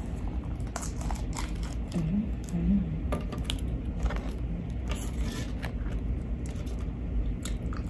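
Crinkling and crackling of a plastic dipping-sauce cup being handled and its peel-off lid pulled open, with scattered small clicks and taps.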